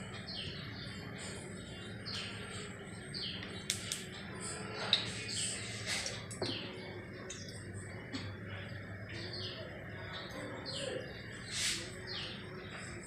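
Small birds chirping repeatedly, short high chirps about two a second, over a steady low hum. A few sharp clicks cut in, the loudest about five seconds in.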